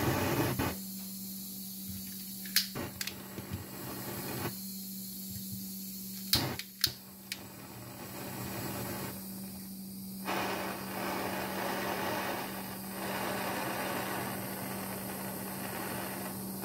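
Propane torch flame hissing steadily while a utility knife blade is heated in it; the hiss dips briefly a few times. A few sharp clicks are heard about 2.5 s in and again between 6 and 7 s.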